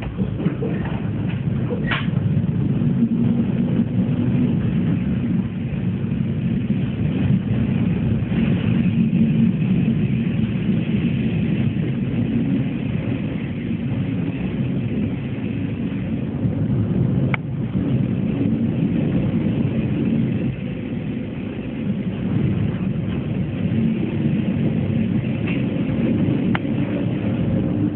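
Passenger train running, heard from inside the carriage: a steady low rumble of the wheels and running gear, with a few sharp clicks.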